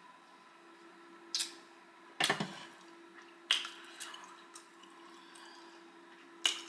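Wet mouth sounds close to the microphone after sipping water through a straw: a handful of short lip smacks and clicks about a second apart, the second one the loudest, over a faint steady hum.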